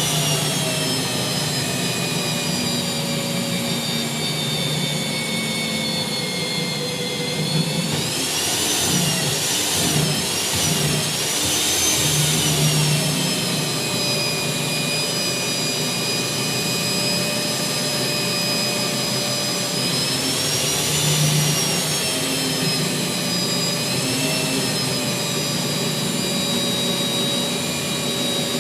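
Electric core cutting machine drilling a hole through a concrete slab with a water-fed core bit, its motor whining steadily throughout. The pitch wavers up and down about a third of the way in and again about two-thirds of the way through.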